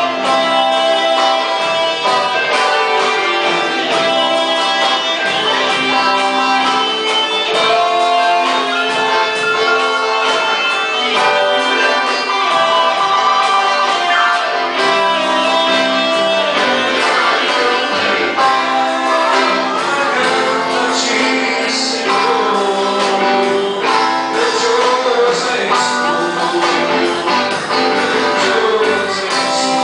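Church worship band playing a song, with a singing voice over strummed guitar.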